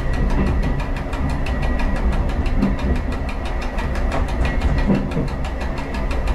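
Diesel railcar running along the track: a steady low engine rumble with a rapid, regular clatter of about seven beats a second and a faint steady whine.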